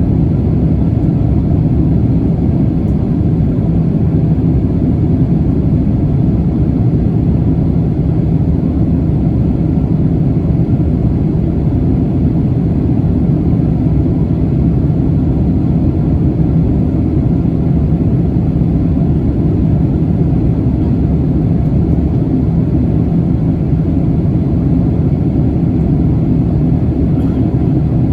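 Jet airliner's engines and airflow making a steady low rumble, with no change in level.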